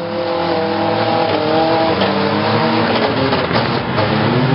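Pickup truck engines revving hard in a demolition derby, their pitch rising and falling. A few sharp knocks come about three and a half to four seconds in as the trucks ram each other.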